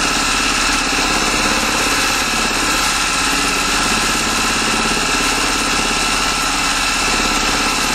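Juki sewing machine running steadily at speed, its needle stitching rapidly through the layers of a quilt: a fast, even mechanical clatter.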